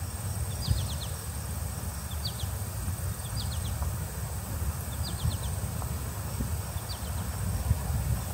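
Birds chirping outdoors in short bursts of three or four quick high notes, repeating every second or two. Under them run a steady high-pitched whine and a constant low rumble.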